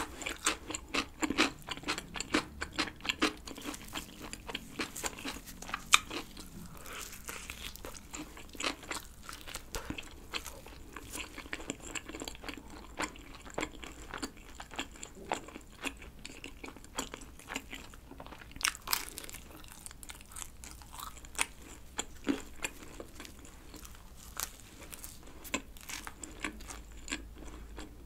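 Close-miked chewing of a thin black-rice-dough pizza's crust edge: crisp crunches and small wet chewing clicks throughout. They are thickest in the first half, with one loudest crunch about six seconds in.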